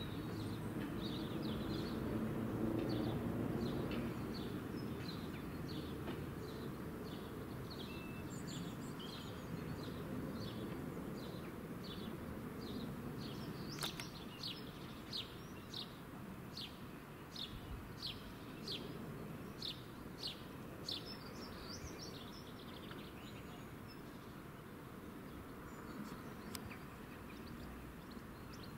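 A small songbird repeating a short high chirp, about two a second, loudest in the second half, over a steady low background rumble. A single sharp click about halfway through.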